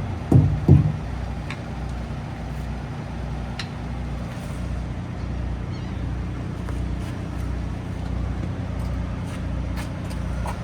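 Semi truck's diesel engine running steadily at low revs, a constant low hum with a slow even pulse. A few short loud sounds come in the first second.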